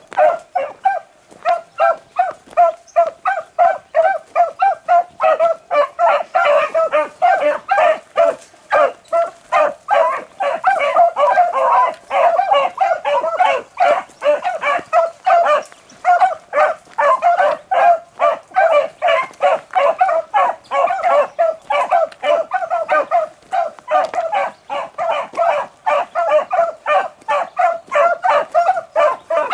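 Several beagles baying in rapid, overlapping barks without a break, hounds giving tongue as they run a rabbit track. The calls thicken from about six seconds in.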